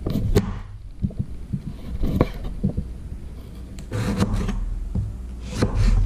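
Chef's knife trimming the skin off a broccoli stalk on a plastic cutting board: scraping cuts through the stalk with scattered knocks of the blade on the board, a louder cluster of knocks near the end.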